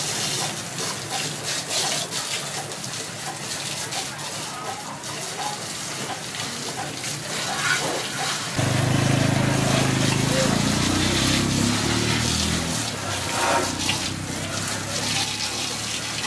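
Water spraying from a garden hose onto a motorcycle, hissing and splattering on the metal and the wet concrete. A low hum joins about halfway through and fades out some four seconds later.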